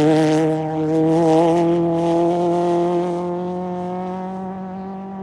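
Off-road race truck's engine running at high revs, its pitch climbing slowly while the sound fades away.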